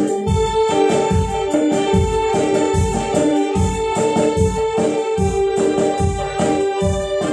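Instrumental interlude from a live band: an electronic keyboard holds a melody in an organ-like electric-piano voice over a steady beat of hand drums.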